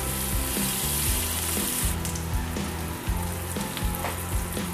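Sliced onion, ginger and garlic sizzling in hot oil and butter in a nonstick pan while being stirred with a spatula. The sizzle is brightest in the first two seconds. Background music with held bass notes plays underneath.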